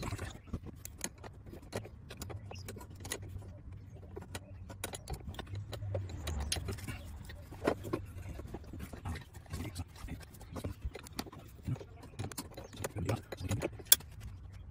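Hand tools working the 10 mm line fitting on a clutch master cylinder: irregular metallic clicks and taps as it is loosened turn by turn, with one sharp click near the end, over a low steady hum.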